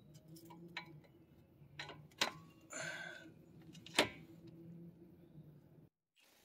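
A few sharp metallic clicks of a tool and socket being handled on a sway bar end link nut, with one short rasping burst about three seconds in. A low steady hum runs underneath and cuts off suddenly near the end.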